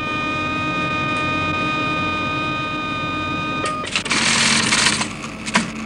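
A computer's reaction-test note, a steady electronic tone, holds until about three and a half seconds in and stops with a click as the button is pressed. A teleprinter then rattles for about a second, printing the measured reaction time, followed by a couple of mechanical clicks.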